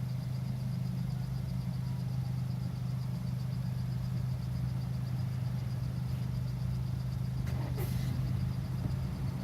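Car engine idling steadily while stopped, heard from inside the cabin with a window half open. A brief click about eight seconds in.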